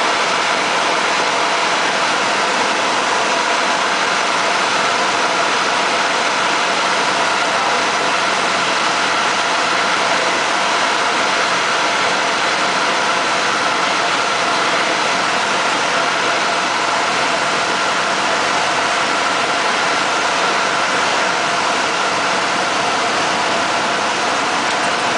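Single-engine light aircraft's engine and propeller droning steadily, heard from inside the cockpit, at approach power during the descent to land.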